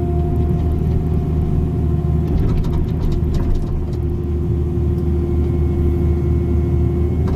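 305 mini excavator's diesel engine running steadily under load with a steady hydraulic whine as the bucket is dragged flat along the trench bottom. A few light scrapes and clicks come in about two to three and a half seconds in.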